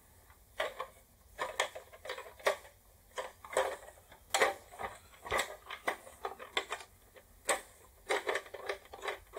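Hard plastic parts of an old toy being handled: irregular sharp clicks and knocks, roughly one or two a second.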